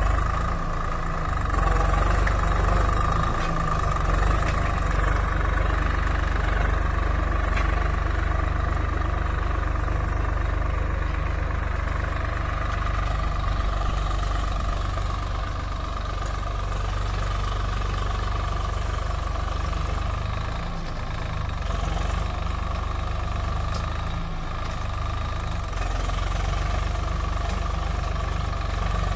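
Swaraj 744 FE tractor's three-cylinder diesel engine running steadily under load while pulling a nine-tine cultivator through the soil.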